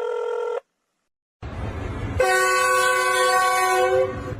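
A steady tone stops about half a second in; after a short silence a low rumble starts, and then a loud horn blast of several steady pitches held together sounds for nearly two seconds.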